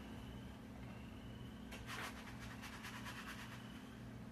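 Quiet room tone: a steady low hum, with a faint brief rustle or scrape about two seconds in.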